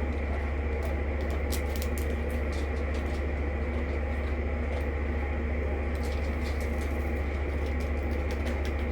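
Light, irregular clicking of tiny plastic diamond-painting drills being tipped and sorted into small storage containers, over a loud, steady low hum.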